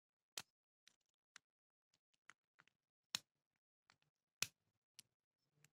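Faint, irregular clicks and taps of a lock pick working the wafers inside a Verhulst AV Bruxelles wafer padlock, with three sharper clicks among the softer ones.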